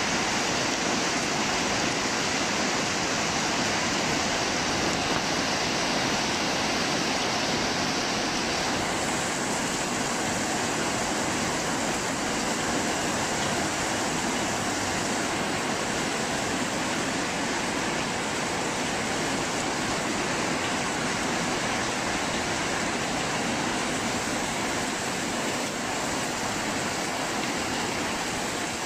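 Heavy rain from a thunderstorm falling in a steady, unbroken downpour.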